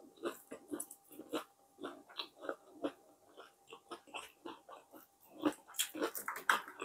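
Close-miked chewing of a mouthful of crispy fried bammy (cassava flatbread): a quick, uneven run of small wet mouth clicks and smacks, a few a second, growing denser and louder near the end.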